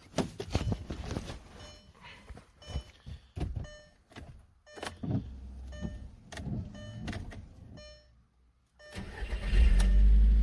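A few knocks and clicks, then about nine seconds in the 2000 Audi TT's 1.8-litre turbocharged four-cylinder starts and idles steadily: the first start after fresh oil and a new oil pressure switch.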